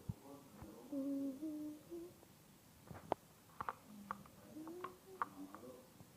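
A person humming a few short notes, with several sharp clicks in the second half.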